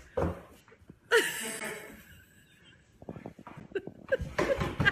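A person laughing and exclaiming in short bursts, with a loud outburst about a second in and quick, broken laughter building near the end.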